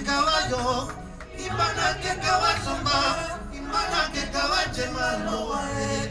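A man singing through a microphone and PA over amplified backing music.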